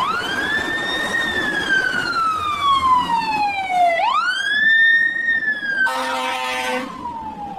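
Fire truck siren wailing: the tone rises quickly, then falls slowly over about four seconds, and the cycle repeats twice. A short steady horn blast sounds over it about six seconds in.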